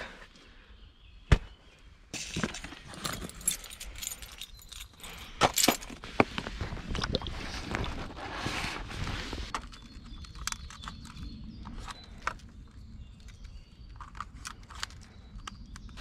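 Camping gear being handled and packed: irregular rustling and clattering, with a sharp click about a second in, busy for several seconds and then quieter with scattered small knocks.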